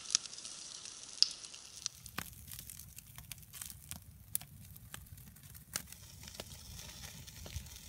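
Open wood campfire crackling, with sharp irregular pops over a steady hiss of sizzling. About two seconds in the hiss drops away and a low rumble of flames carries on under scattered pops.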